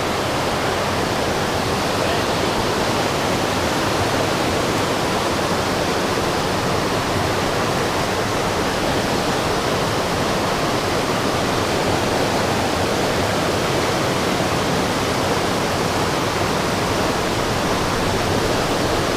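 River water rushing, a loud, even, unbroken hiss.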